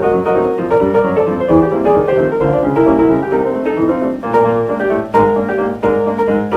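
Solo stride piano played fast and busy, with dense runs of notes over a steady left-hand bass, in the narrow, dull tone of an old 78 rpm record.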